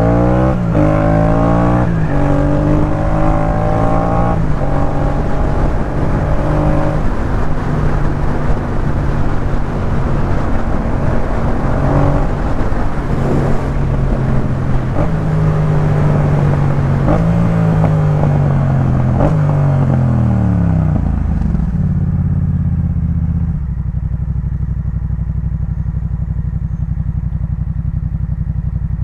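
Yamaha MT-07's parallel-twin engine through a Jeskap K4 full exhaust system, pulling up through several gears with the pitch climbing and dropping at each shift, then running on with revs rising and falling. Past the middle the engine pitch falls as the bike slows, and it settles into a steady idle, with the wind rush dying away at the same moment.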